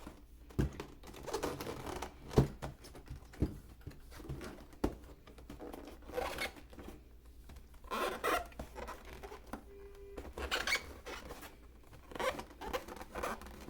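Cardboard and plastic packaging being handled as a toy RC truck is taken out of its box: irregular rustling and scraping, with several sharp knocks.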